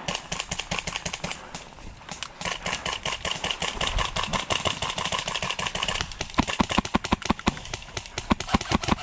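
Airsoft guns firing fast strings of shots, heard as a dense rattle of sharp clicks. About six seconds in, the clicks turn louder and closer, at roughly eight to ten a second.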